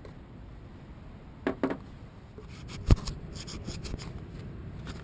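Close handling noises: two clicks, then a sharp knock about three seconds in, followed by light rapid clicking and scratching.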